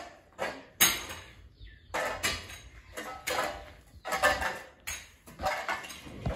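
Metal shovel scraping along a goat stall's floor as soiled hay bedding is scooped up, in repeated strokes.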